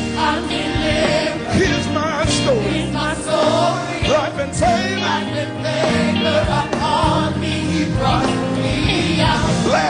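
Gospel praise music: a band playing under singing voices, at full volume without a break.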